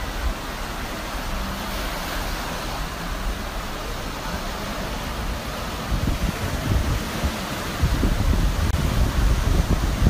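Surf washing onto the shore and wind buffeting the microphone, with the buffeting heavier in the second half. A jet ski's engine runs faintly underneath.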